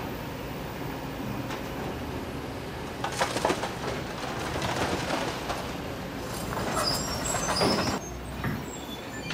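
Kobelco SK200 hydraulic excavators' diesel engines running steadily while a bucket digs. From about three seconds in, the bucket scrapes and rocks and gravel clatter, in bursts that come and go.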